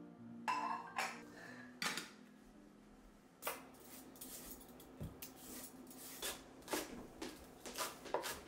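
A few clinks of dishes set down on a stone counter, then a kitchen knife knocking irregularly on a wooden cutting board as a radish is trimmed and green onions are chopped, the strokes coming closer together near the end.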